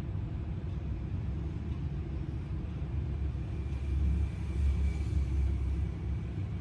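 Steady low background rumble, a little stronger in the second half, with a faint thin high tone joining about halfway through.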